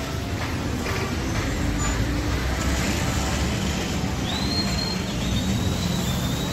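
Heavy road traffic: a steady rumble of slow-moving cars. About two-thirds of the way in, a high, steady whistle-like tone comes in and holds.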